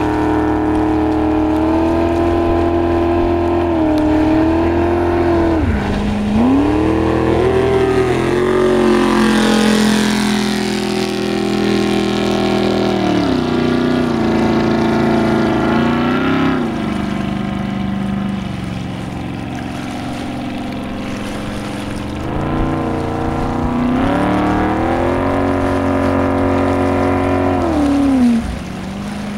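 Motorboat engine running at speed, its pitch dipping and climbing again several times as the throttle changes, with a sharp drop near the end.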